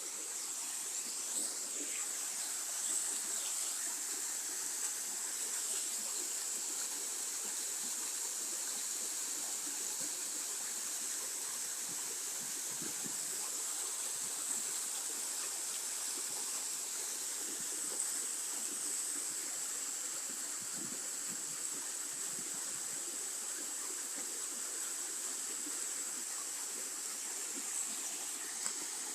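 Water pouring over a small waterfall: a steady, unbroken rush, bright and hissy, with no change over the whole stretch.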